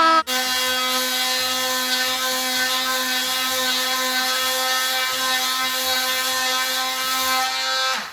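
Milwaukee M18 cordless oscillating multi-tool with a sanding pad, running on its highest speed setting and sanding filler on MDF: a steady high whine over a rasping hiss. It dips briefly and settles to a lower, steady pitch just after the start, and stops near the end.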